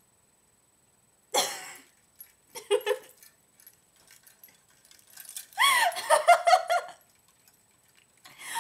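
A woman laughing: a short burst about a second in, then a longer run of giggling past the middle.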